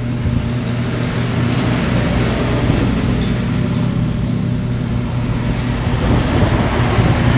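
Steady background noise: a low hum under an even rushing noise, unbroken throughout.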